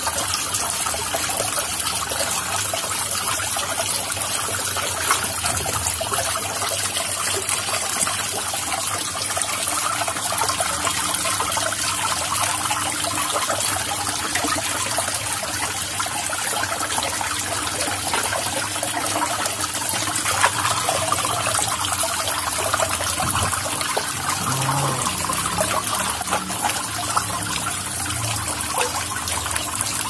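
Water pouring steadily from a small decorative fountain and splashing and trickling into its pool.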